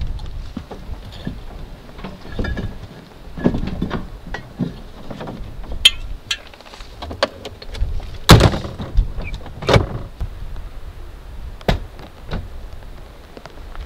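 Doors and gear being handled at a converted bus's storage compartment: a run of clicks, knocks and thumps, the loudest two about eight and ten seconds in.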